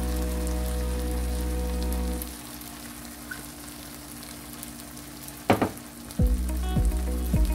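Background music for about two seconds, then the sizzle of liquid poured from a pot into a hot frying pan of onions and potatoes. A single loud clank comes about five and a half seconds in, and the music returns with a steady beat near the end.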